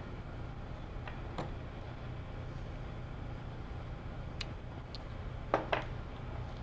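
A few light metallic clicks and clinks of hand tools (a torque wrench and sockets) being handled, over a steady low hum. The loudest pair of clinks comes near the end.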